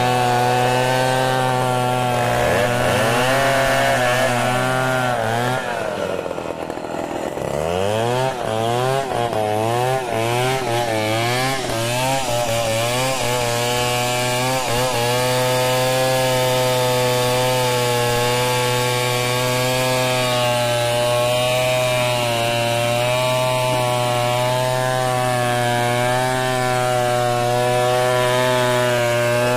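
Two-stroke chainsaw running at high revs, at first ripping lengthwise through a mahogany log. For several seconds in the first half its pitch wavers up and down, then it holds a steady high note.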